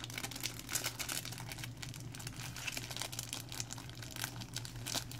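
Faint crinkling and rustling from Pokémon card packs and cards being handled, with scattered light ticks, over a steady low hum.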